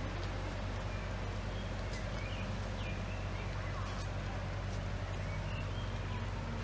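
Steady low machine hum with a few faint, short bird chirps over it.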